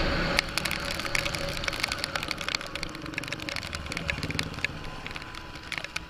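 Riding noise from an Ather 450X electric scooter on a wet road: steady wind and tyre hiss with a faint steady whine, peppered from about half a second in with many sharp ticks of raindrops striking the camera.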